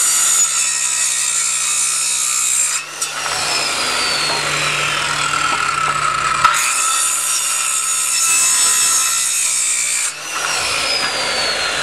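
DeWalt corded circular saw cutting pallet-wood 2x2 posts to shape pointed ends. It runs steadily, with two brief breaks about three and ten seconds in.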